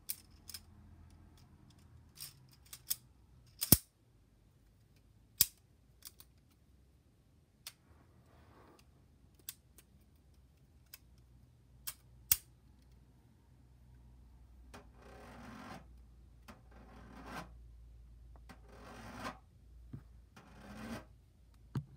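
Handheld fidget toys clicking and snapping at an irregular pace, with a few much louder sharp clicks. Over the last third come several longer rubbing, rustling passages, with a final click near the end.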